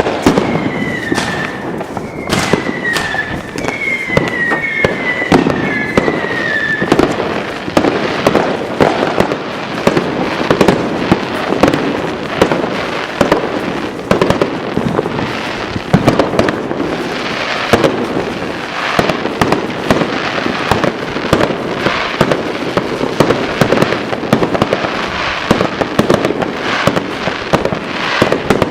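A dense, unbroken barrage of fireworks going off all around: loud bangs and firecracker crackle with no pause. In the first several seconds, about five short falling whistles from whistling fireworks cut through the bangs.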